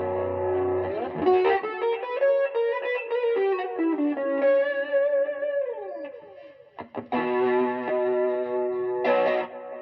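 Squier Bullet Telecaster electric guitar played through an amp: a held chord, then a run of single notes with slides, a long downward slide, and two strummed chords that ring out near the end.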